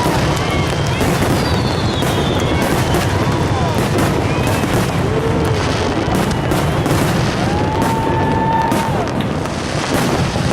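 Fireworks going off in quick succession, a dense, continuous run of booms and crackling bursts, with a few whistling tones rising and falling over them.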